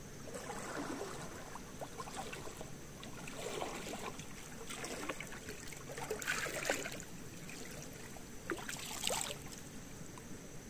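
Water sloshing and splashing in irregular bursts, several over a few seconds, as from something moving through shallow water.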